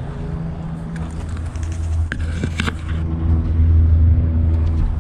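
Steady low mechanical hum, swelling a little in the second half, with a few light clicks and knocks near the middle.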